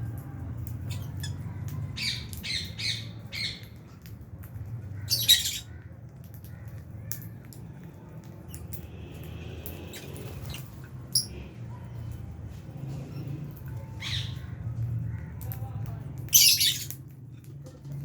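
Lovebirds squawking and chirping in short, shrill calls, a few of them much louder, about five seconds in and again near the end, over a steady low hum.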